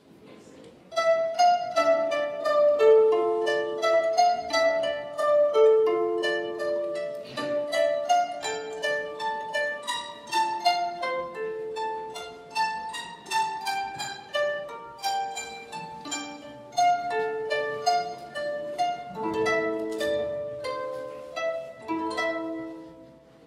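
Rota, a reconstructed medieval harp-like string instrument, plucked by hand. It plays a quick melody of ringing single notes that starts about a second in and stops just before the end.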